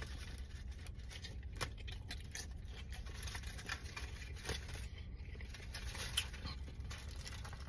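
A man biting into and chewing a loaded Maxwell Street Polish sausage in a bun, close to the microphone, with soft wet mouth noises, a few sharp clicks and the rustle of the foil-and-paper wrapper, over a steady low hum in the car cabin.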